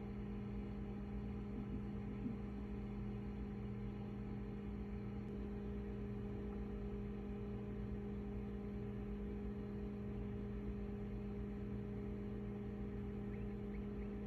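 Steady low electrical hum that holds one pitch without change.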